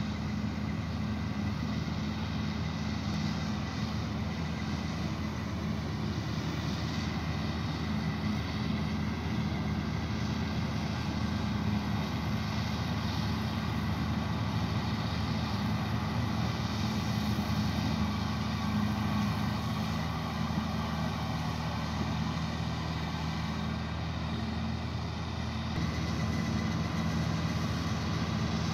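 8070 combine harvester running steadily while cutting wheat: a constant engine drone with the clatter of the machine's workings on top.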